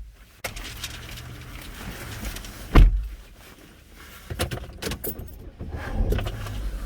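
A car door shuts with a thud about three seconds in. It is followed by keys jangling and a run of small clicks and rustles as someone settles back into the seat.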